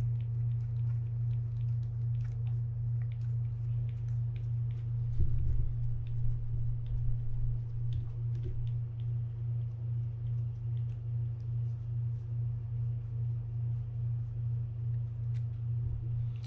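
Steady low hum, with faint small clicks and two soft knocks about five and eight and a half seconds in, as the screw-on handle knob of a Jarvis Walker EA 700 spinning reel is unscrewed by hand.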